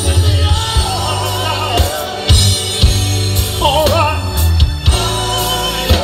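Live band playing through a PA system: a male lead singer over bass guitar, drum kit, electric guitar and keyboard, with a heavy bass line and a steady drum beat.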